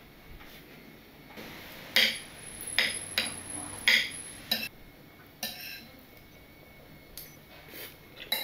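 Metal spoon clinking and scraping against a ceramic plate as omurice is scooped up, several sharp clinks spread over a few seconds.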